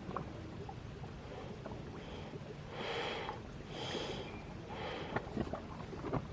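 Breath-like hissing puffs from holes in a seaside rock, coming about a second apart, the strongest around the middle, over a low steady wash. They sound much like a person breathing, and the uploader takes them for air pushed out of the holes by the waves.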